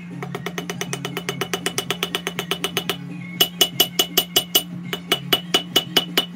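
Hammer forging hot Damascus steel on an anvil: a quick run of light blows, about seven a second, then from about three seconds in heavier blows that ring out, in fast groups.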